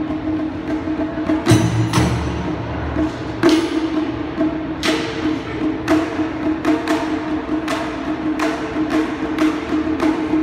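Japanese taiko drums played live: a few heavy booming strikes in the first half, then a steady run of sharper, clacking strikes at about three a second.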